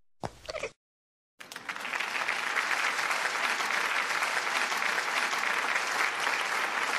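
A crowd applauding: dense clapping that starts about a second and a half in and stops abruptly at the end.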